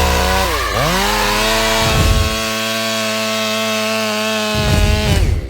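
Stihl MS 500i fuel-injected two-stroke chainsaw running at high revs. Its engine speed dips sharply and recovers about half a second in, and again at the very end.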